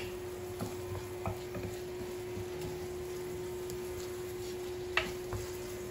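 A wooden spoon stirring and scraping through sautéing diced tomato, onion and pepper in a nonstick frying pan, with a sharp knock of the spoon against the pan at the start and another about five seconds in.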